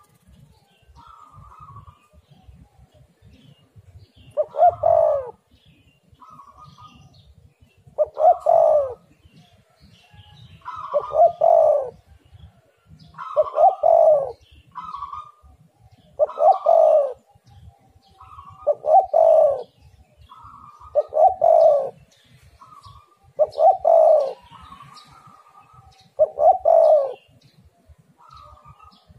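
Spotted dove (tekukur) cooing in a steady series: nine loud coo phrases, one about every two and a half seconds, with softer, higher notes between them.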